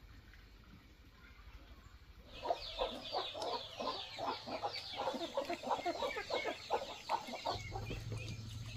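Chickens clucking: a quick run of short, repeated calls that starts about two seconds in and lasts about five seconds.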